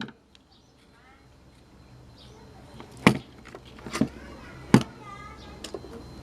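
Three sharp knocks about a second apart over a low hum that slowly grows louder, with faint high chirps in the background.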